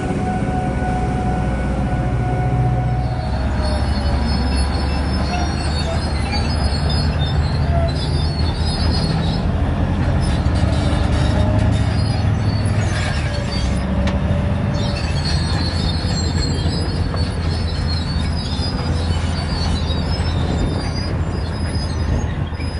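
Large mining haul truck driving past close by: a loud, deep engine rumble with thin squealing tones that waver and slide in pitch over it.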